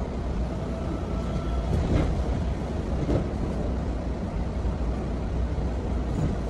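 Passenger train running at speed, heard from inside the carriage: a steady low rumble of wheels on rails, with a couple of faint knocks about two and three seconds in.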